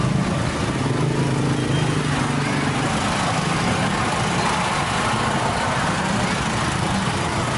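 A small engine running steadily at an even speed, with a constant low drone.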